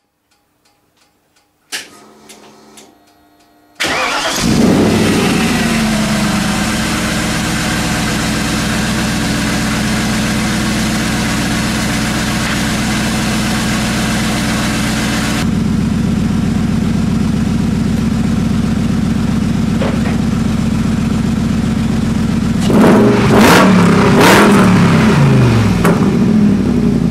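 Car engine started for the first time after a long layup: a click about two seconds in, then it cranks and catches near four seconds and settles into a loud, steady idle. Near the end it is revved a couple of times, the pitch rising and falling, before dropping back to idle.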